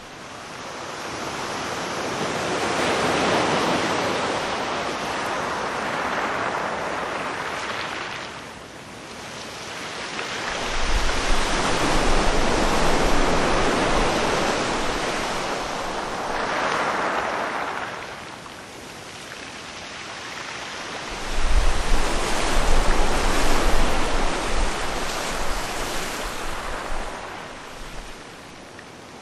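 Sea surf: waves breaking and washing in, the sound swelling and ebbing every several seconds. Wind buffets the microphone during the strongest surges.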